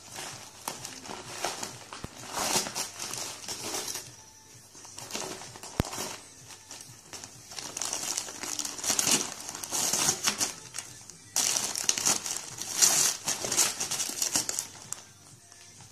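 Irregular bursts of crinkling, rustling noise, like something being handled or pushed about, with short lulls between clusters and one sharp click about six seconds in.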